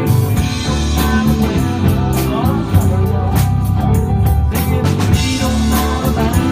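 Live rock band playing: electric bass, electric guitar and drum kit, with a steady beat and a lead line that bends and wavers in pitch.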